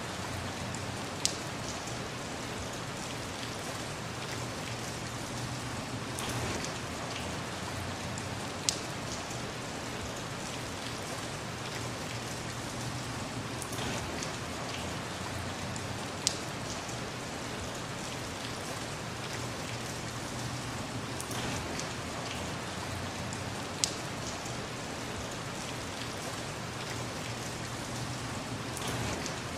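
Steady, heavy rainfall with an even hiss, broken four times by a single sharp tick about seven to eight seconds apart, the loudest sounds in it.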